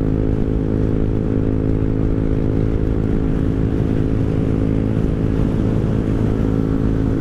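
Rusi Rapid 150 scooter's single-cylinder engine running through an aftermarket full-system exhaust, holding a steady pitch while cruising at constant speed.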